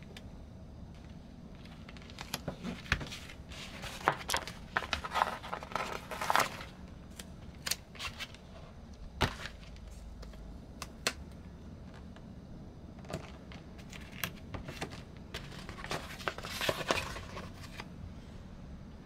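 Paper handling: a round sticker pressed onto a large white envelope, a paper backing strip peeled, and printed label sheets lifted and shuffled. It comes as scattered rustling, crinkling and a few sharp clicks, busiest a couple of seconds in and again near the end, with single ticks in between.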